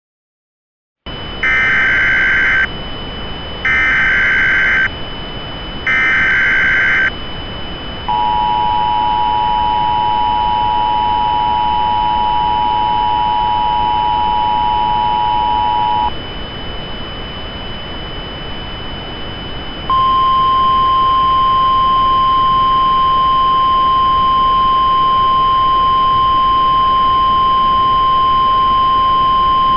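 Emergency Alert System tones over a hiss of static. First come three short data bursts of the digital header. Then the two-tone attention signal is held for about eight seconds, and after a few seconds of hiss a single steady tone sounds for about ten seconds.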